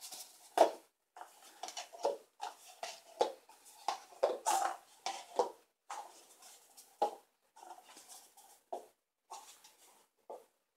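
Paper cups being picked up and set down in quick succession on a wooden table as a cup pyramid is stacked one-handed: an irregular run of light taps, scuffs and papery rustles with short gaps between them.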